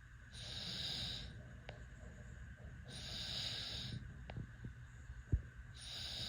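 Sleeping baby snoring: three hissy, noisy breaths, each about a second long and spaced about two and a half seconds apart. A short soft thump comes a little after five seconds.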